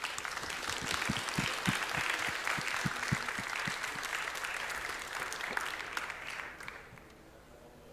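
Audience applauding, a dense patter of many hands clapping that starts at once, holds steady, and dies away about a second before the end.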